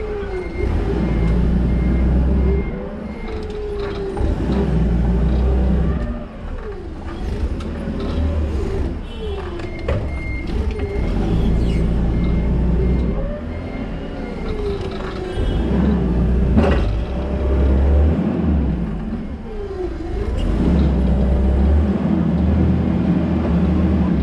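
Toyota counterbalance forklift at work: a low rumble with its motor sliding up and down in pitch, a beeping alarm in a few short spells, and one sharp clank about two-thirds of the way through.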